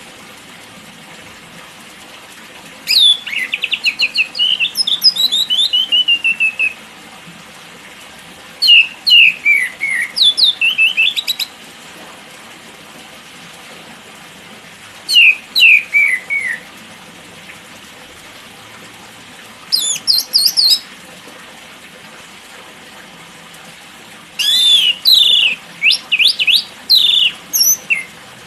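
White-rumped shama (murai batu) singing: five separate phrases of quick, clear whistled notes, many sliding downward, with pauses of a few seconds between phrases; the last phrase, near the end, is the longest and busiest.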